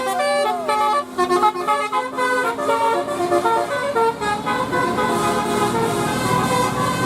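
Bus 'telolet' multi-tone musical horn playing a fast melody of short stepping notes, with one sliding note near the start.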